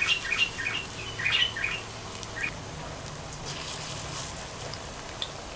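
Small birds chirping several times in the first couple of seconds, over a steady low sizzle of gram-flour pakora batter frying in hot oil in a steel wok.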